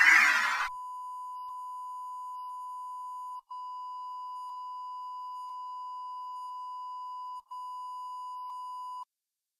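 Steady electronic reference tone of a film countdown leader: one unbroken pitch held for about eight seconds, with faint ticks about once a second and two momentary dropouts, cutting off suddenly near the end. The last fraction of a second of a synthesized music sting comes just before the tone starts.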